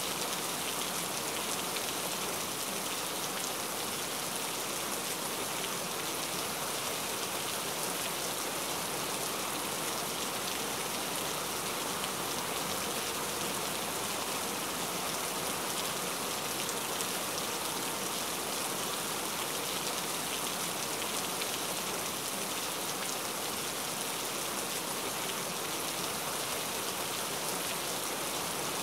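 Steady, unbroken rain noise from a rain-sounds ambience track.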